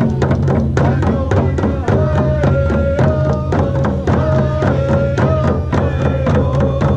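Hand drums beating a steady, fast rhythm, roughly three beats a second, under a melody of long held notes.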